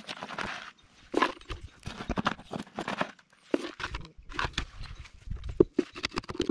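Damp rammed-earth mix scooped out of a plastic bucket and dropped into a small plywood form, then a 2x4 ramming it down in quick repeated thuds during the second half.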